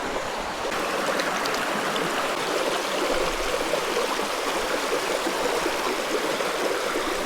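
Creek water running steadily, an even rushing noise that grows a little brighter about a second in.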